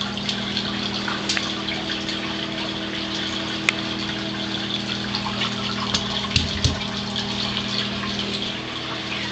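Sump pump running continuously: a steady motor hum under the rush of water, with a few faint clicks and a couple of soft knocks a little past the middle. It is pumping non-stop to keep up with water from saturated ground.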